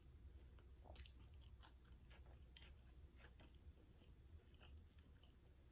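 Faint chewing of a soft pancake burger: scattered wet mouth clicks and smacks, busiest from about a second in to halfway through.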